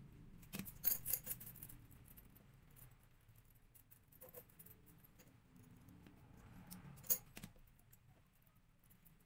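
Small metal chainmail rings and pliers clinking as the mesh is handled and rings are fitted, with a quick cluster of sharp metallic clicks about a second in and another near the end, and lighter jingling between.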